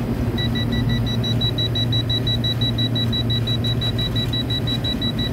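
Toptes combustible gas leak detector alarming with rapid, high-pitched beeping that starts about half a second in, as its sensor picks up natural gas at a gas pipe at 20% LEL or more. Under it, a steady low hum, typical of a running air-conditioning condenser.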